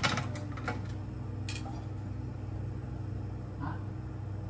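Steady low mechanical hum, with a few light metallic clicks in the first second and a half as the stainless steel frying pan is moved on the gas stove's cast grate.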